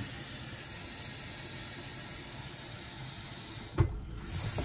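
Kitchen faucet running water into a rotary tumbler drum standing in a steel sink: a steady hiss. Near the end there is a single knock as the faucet handle is worked, and the flow briefly drops out before running again.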